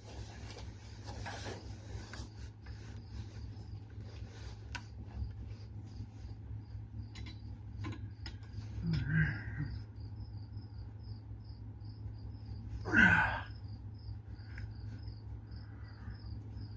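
Scattered clicks and knocks of hand tools at work on a truck's drive shaft, over a steady low hum and a regular high chirping two or three times a second. About three-quarters of the way through comes one brief, louder sound that falls sharply in pitch.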